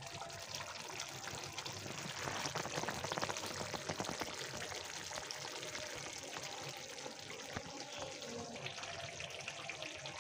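Chicken karahi masala bubbling and sizzling in a karahi on high flame: a steady crackle of thick gravy and oil popping as the masala is fried down (bhuna) until it is ready.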